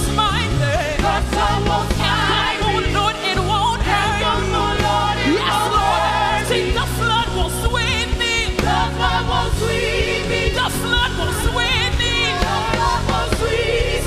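Gospel choir and worship band performing: several voices singing with vibrato over steady bass and drums.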